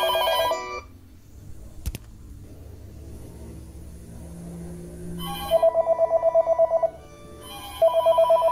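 Panasonic cordless phone ringing with a fast electronic two-tone warble that sounds like an old-style ringer. One ring ends just after the start and two more rings of about a second and a half come around five and eight seconds in. There is a single sharp click about two seconds in.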